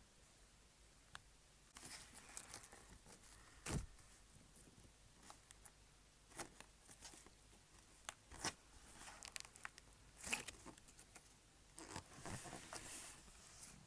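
Slime being squished and stretched by hand, giving soft, irregular sticky pops and crackles, the loudest a sharp pop a little under four seconds in.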